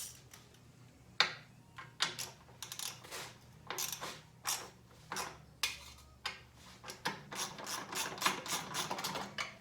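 Hands handling a small voltage regulator and its wiring harness: scattered clicks and taps, turning into a quicker run of small rattling clicks near the end.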